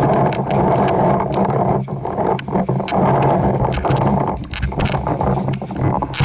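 Paintball markers firing in scattered sharp pops, several a second at times, over a loud steady rushing noise.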